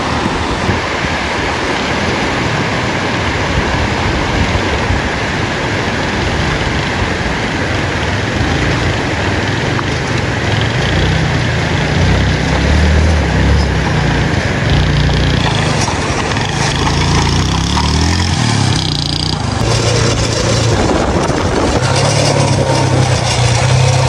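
Motorcycle engine running over the steady rush of a rocky mountain stream. The engine gets louder about halfway through, and a rev rises in pitch a few seconds before the end.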